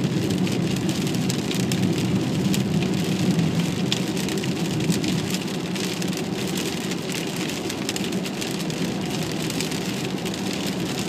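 Heavy rain hitting the windshield and roof of a moving car, heard from inside the car as a dense patter of small drop impacts over a steady low rumble of the car on the wet road.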